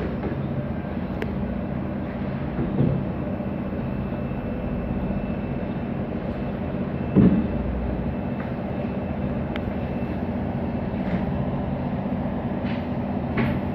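Knocks and light clicks of a wall-mounted folding table's hinged wooden panels and folding legs being swung open, the loudest knock about seven seconds in, over a steady low hum.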